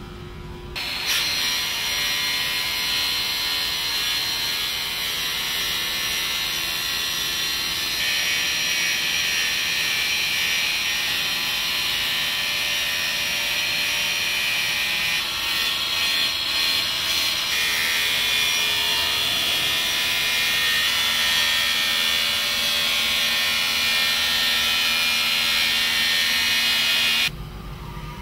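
An abrasive wheel on a robot-held grinder grinding the metal wall of an autoclave. It makes a steady, loud, hissing grind that starts about a second in, shifts in level a few times, and cuts off just before the end.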